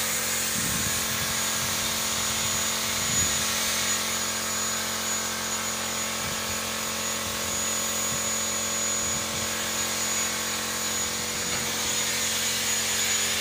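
Air-fed gravity spray gun hissing steadily as it sprays paint, with a steady low hum underneath.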